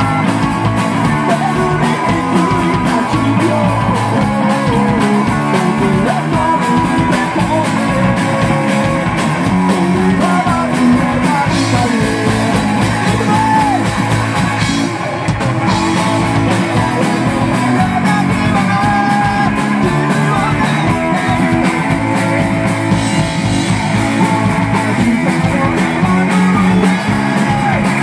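Live rock band playing loud and without a break: electric bass, guitar and drum kit, with a singer's voice over them.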